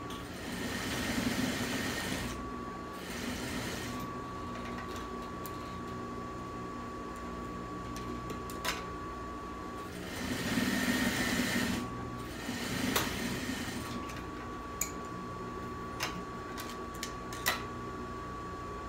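Industrial sewing machine stitching fabric in two runs of about two seconds each, one near the start and one about halfway through, each followed by a shorter burst. A few sharp clicks come in the pauses.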